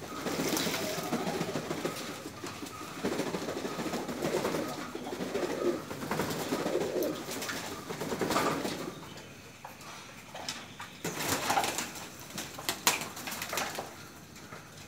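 Domestic pigeons cooing, a low rolling coo through most of the first nine seconds, then softer, with a few sharp clicks a little past the middle.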